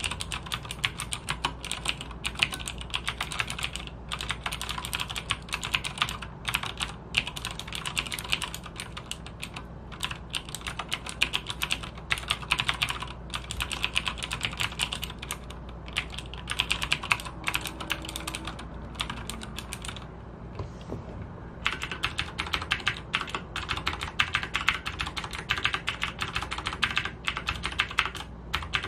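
Typing on a Logitech G610 mechanical keyboard with clicky Cherry MX Blue switches: a dense, steady run of keystroke clicks, with a short pause about two-thirds of the way in.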